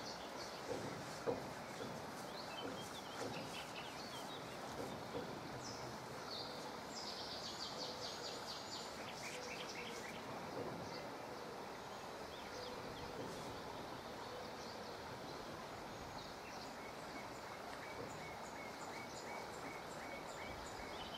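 Outdoor background noise with small birds chirping: a quick run of high chirps about seven seconds in and another run of short chirps near the end. A single sharp tap about a second in.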